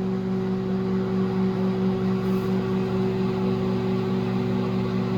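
Microwave oven running: a steady electrical hum with several low droning tones, unchanging throughout.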